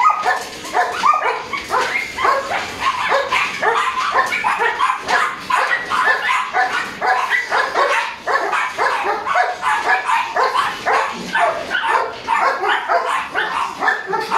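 A three-month-old Border Collie puppy barks and yips in a rapid, unbroken string of short calls, several a second. This is excited barking during tug play.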